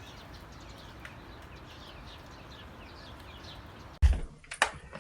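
Bird chirping faintly and repeatedly, a steady series of short falling notes. About four seconds in it cuts off suddenly to loud knocks and clicks.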